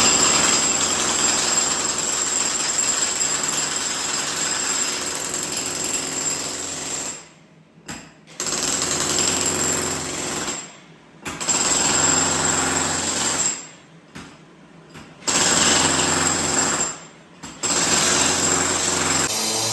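A jackhammer breaking up a concrete floor slab, running hard with a steady high whine. About seven seconds in it starts stopping and restarting, with four short pauses.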